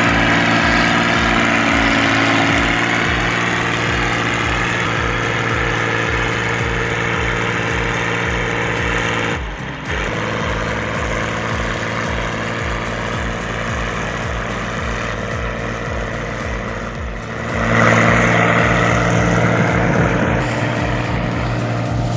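Heavy diesel machine engine running steadily under load, with a brief drop about halfway through and another a few seconds before the end, after which it is louder and rougher.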